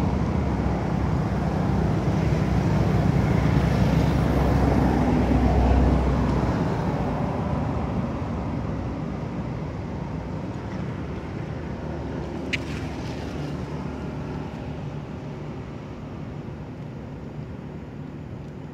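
A motor vehicle's engine running as it passes, loudest for the first six seconds and then slowly fading away. One brief high squeak about twelve seconds in.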